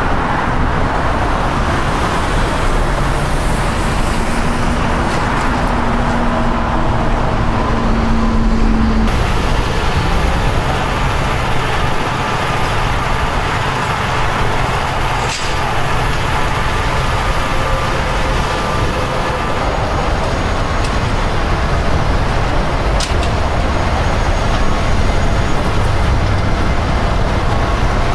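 Heavy trucks' diesel engines running with steady roadway traffic noise, the sound changing abruptly twice. There is a short steady hum in the first part and a sharp click about fifteen seconds in.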